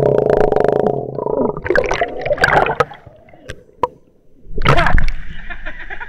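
Water sloshing and gurgling against an action camera's waterproof case as it is dunked under and lifted out of a river pool. The rush of water is loud for about the first second, then breaks up into splashes and sharp knocks, and surges again about five seconds in.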